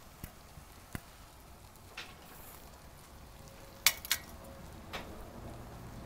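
Small aluminium cat-food-can alcohol stove burning under a paper takeout container of water, a faint steady hiss, with a few sharp clicks and taps, the loudest two close together about four seconds in.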